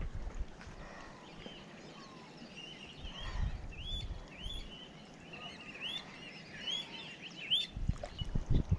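A small bird chirping: a quick run of short, curving chirps, most of them about a second and a half in until near the end, with a few low rumbles underneath.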